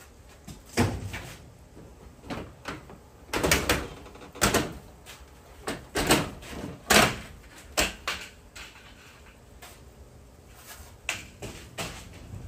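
Irregular knocks, bangs and clatters of demolition work, typical of siding being pried and torn off a wall; about a dozen hits, bunched in the middle, loudest a little past halfway, then a lull before a couple more near the end.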